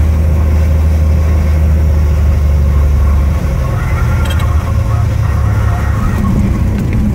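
Single-engine light aircraft's propeller engine heard from inside the cockpit, running steadily at low landing power. About three seconds in, the steady hum breaks up into a rougher sound as the plane touches down and rolls on a grass strip.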